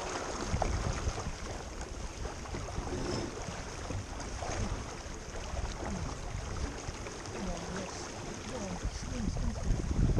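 Wind rushing over the microphone and water washing against a small boat's hull, a steady rumbling noise throughout.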